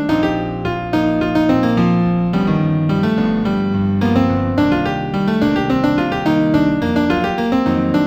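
New-age solo piano music in B minor, with quick running notes in the middle and upper range over held bass notes.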